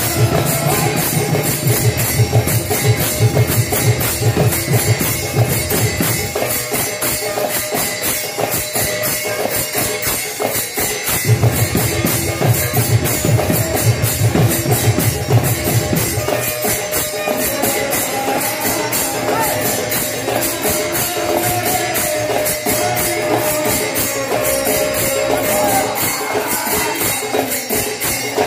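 Live devotional sankirtan music: hand drums with small hand cymbals clashing in a fast, steady stream. The deep drum beats drop away twice for several seconds while the cymbals keep going.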